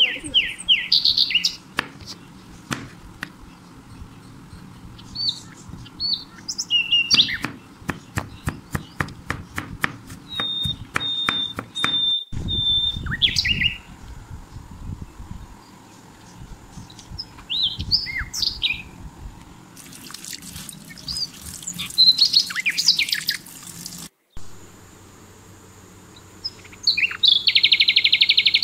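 Small birds chirping and calling on and off, in short high phrases. A quick run of sharp taps comes about seven to eleven seconds in, and a dense buzzy call near the end.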